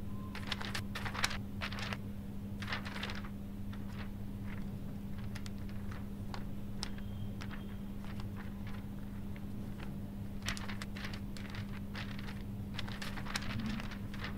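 Sheets of paper rustling and crinkling as pages are leafed through, in clusters near the start and again toward the end, over a steady low hum.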